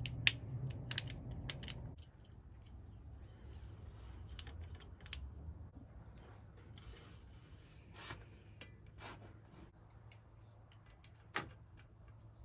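Small metallic clicks and light rustling of hands working a bicycle shifter and its gear cable. A few sharp clicks come in the first two seconds, then scattered quiet ticks, with one distinct click near the end.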